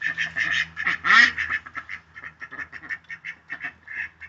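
Duck quacking in a fast, unbroken string of short calls, with one louder call about a second in. It is the hen's yelling at the drake.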